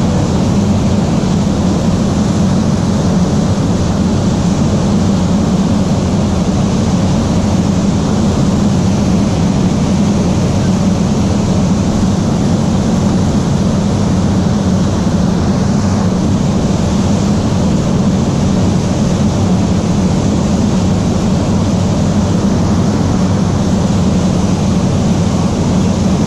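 A ferry's engines running steadily, heard on board: a constant low drone with an even rushing hiss over it.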